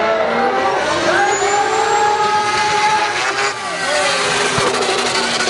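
Drift cars' engines revving hard as two cars slide sideways in tandem, the pitch climbing and dropping with the throttle, over a steady hiss of tyre noise.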